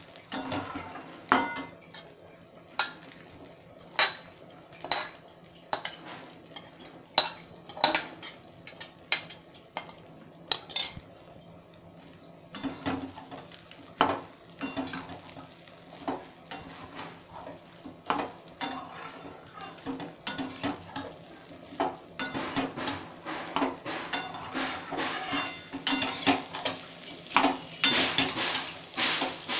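Metal ladle knocking and scraping against a stainless-steel kadai as cooked rice is stirred and turned, to keep it from sticking to the bottom. The knocks are irregular and come much faster in the last several seconds.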